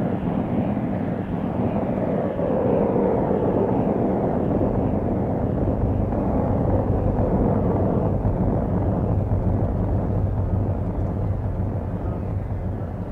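Outdoor ambience recorded through an apartment window and run through filters and effects in real time. It is a steady low rumble of distant traffic-like noise, with slow sweeps that shift its tone.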